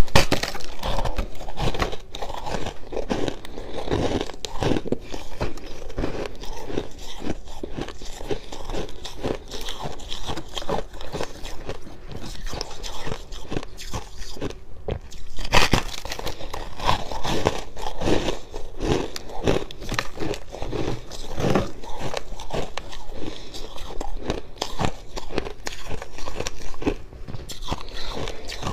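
Close-up crunching and chewing of fluffy freezer frost in the mouth, a dense run of dry, irregular crunches with a louder bite about halfway through.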